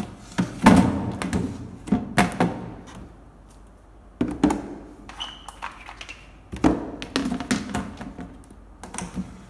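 IKEA Samla clear plastic storage boxes being handled and set down, giving hollow plastic knocks and clatter in several short bursts with pauses between.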